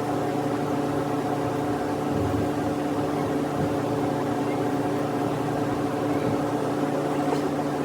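Steady mechanical hum holding one pitch with several overtones throughout.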